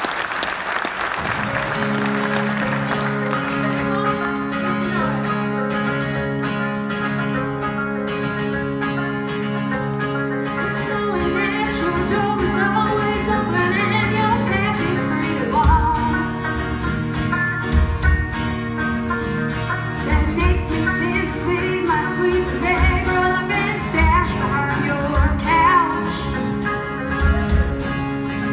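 Live country band on stage: applause at the start gives way to a held instrumental intro, then a woman sings lead. Drums and bass come in about halfway through, with a steady beat.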